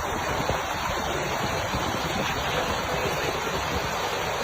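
Heavy storm downpour: a steady, dense hiss of precipitation pelting down without let-up.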